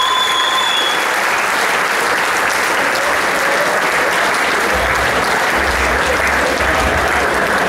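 Large audience applauding steadily. A held high tone ends about a second in, and a low rumble joins about five seconds in.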